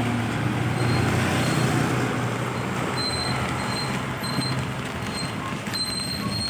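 Bus engine running with a steady low hum under general road noise, between horn blasts. A thin high-pitched tone sounds on and off and then holds steady near the end.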